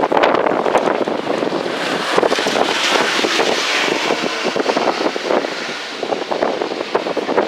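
Ainokaze Toyama Railway 521 series electric train running: continuous running noise with many small rattles and knocks, and a hiss that swells about two to four seconds in, then eases.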